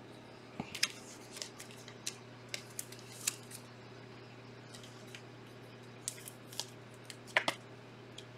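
Scattered light clicks and taps from trading cards and hard plastic card holders being handled, a couple of dozen short sharp ticks at irregular intervals over a faint steady low hum.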